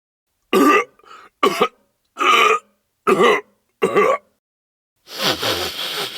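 Comic vocal sound effect: five short voiced bursts about every 0.8 seconds, then a longer, rougher one near the end.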